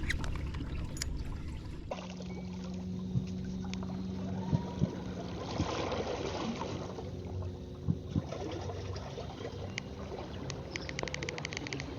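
Water trickling and lapping around a kayak on the water, with a few sharp knocks in the middle and a quick run of clicks near the end.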